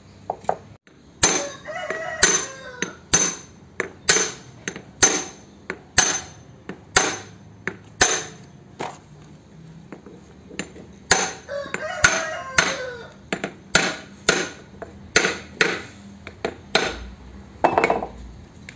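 Repeated sharp hammer blows on steel, roughly one a second with a short pause about halfway, each ringing briefly. They come from tapping parts home on the drive pinion gear assembly of a truck differential carrier. A rooster crows faintly in the background.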